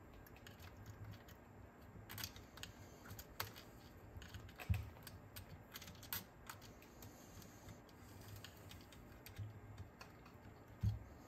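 Faint, scattered clicks and light taps of small metal and plastic parts and tools being handled as a cassette deck's mechanism is reassembled, with a couple of soft knocks, one near the end.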